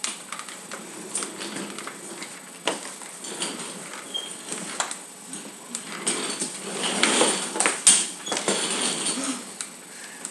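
Scuffling feet and scattered knocks on a hard floor as an upholstered armchair is shoved and scraped across it, busiest a little past the middle and ending in a sharp knock.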